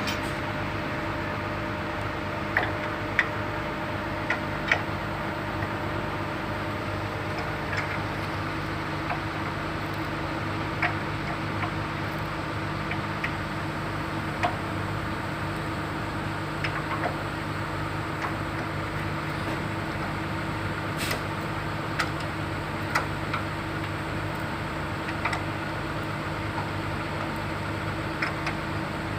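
Komatsu PC200-7 excavator's six-cylinder diesel engine running steadily, with scattered sharp knocks every second or two over it.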